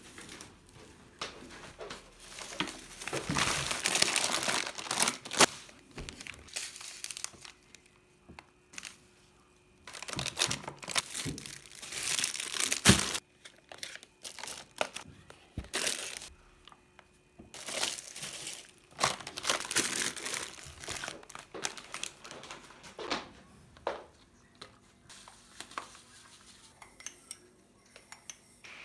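Packaging wrapping crinkling and tearing in irregular bursts as items are unwrapped by hand.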